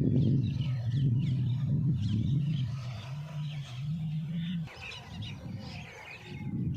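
Birds chirping faintly while a louder low drone runs underneath, stepping up slightly in pitch before cutting off about four and a half seconds in.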